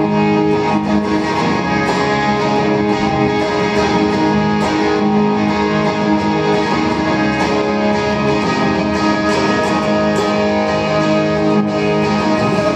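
Electric guitar played live in an instrumental passage of a song, chords ringing on steadily.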